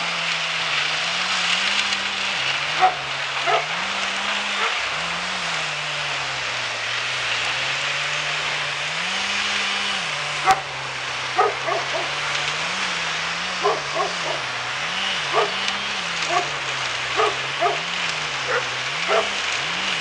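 A wood chipper's engine running, its speed rising and falling again and again as it takes load, over a steady noise. Short, sharp, high-pitched sounds cut through now and then, coming in quicker clusters in the second half.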